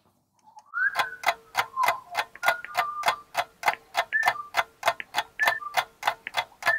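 Waiting music, a ticking-clock beat at about three ticks a second under short high notes that step up and down, starting about a second in.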